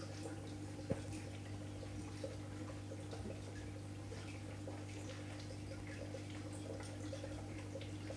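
Steady low hum of a cold-water marine aquarium's running equipment, with faint scattered ticks and bubbling water and one sharper click about a second in.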